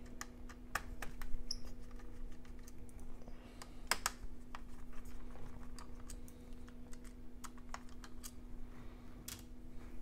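Small screwdriver clicking and tapping on the screws and aluminium chassis of a 13-inch MacBook Pro while the fan screws are taken out: scattered light clicks over a steady low hum.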